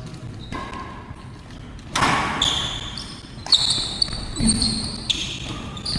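Badminton rally on an indoor court: shoe soles squeaking sharply on the court floor several times, between short knocks of rackets striking the shuttlecock, starting with a sudden loud burst of activity about two seconds in.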